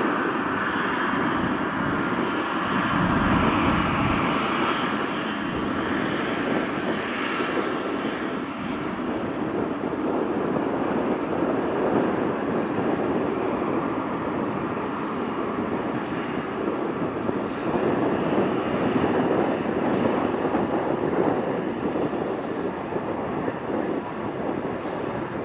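Boeing 777-200ER's GE90-94B turbofan engines running at taxi power: a steady rushing jet noise that dips slightly near the end as the aircraft moves away.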